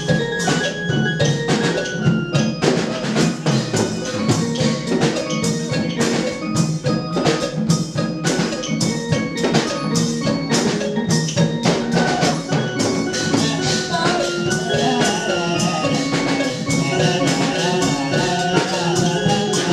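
Thai klong yao long-drum ensemble playing a steady, driving dance rhythm, with dense drum and gong strokes and a pitched melody stepping along on top.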